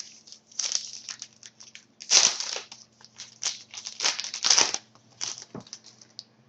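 Wrapper of a pack of hockey trading cards crinkling and tearing as it is opened by hand, in a run of short rustles, loudest about two seconds in and again around four and a half seconds.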